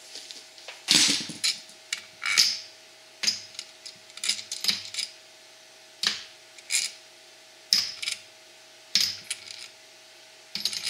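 Bolts being wrenched out of the crankcase cover of a 17 HP Briggs & Stratton engine: short metallic clicks and rattles about once a second as the cover is unbolted.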